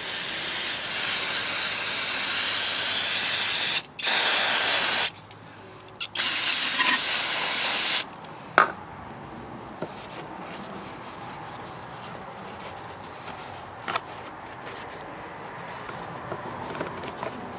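Aerosol can of carb cleaner spraying in three long sprays, a short break between each, washing oil out of a lawnmower's plastic air filter base. After about eight seconds the spraying stops, and a rag wipes the base, with a few light knocks.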